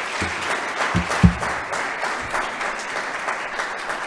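Audience applauding steadily, with two short low thumps about a second in.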